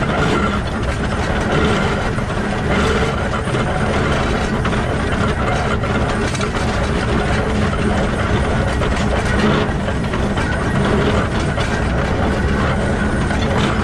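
Running gear of the Shay geared steam locomotive SL-31 in motion: the lineshaft pinions meshing with the bevel gears on the truck wheels, and the wheels rolling on the rails. A steady rumble with a dense clatter.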